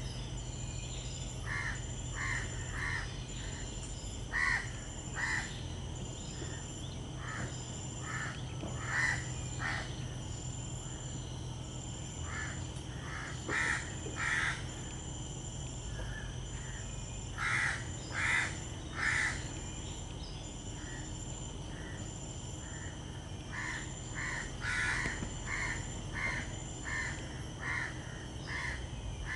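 A bird calling in short repeated calls, in groups of two to four every few seconds. Behind it runs a faint, high pulsing tone about once a second that stops near the end.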